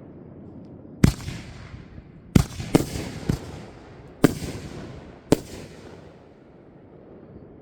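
Fireworks going off: six sharp bangs over about four seconds, the second and third close together, each trailing off in a rumbling echo.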